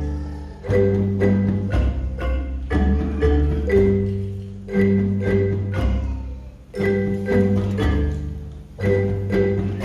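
A school ensemble playing a tune on mallet percussion such as xylophones and glockenspiels, with low bass notes under it. The notes are struck, ring briefly and die away, in short phrases separated by small pauses.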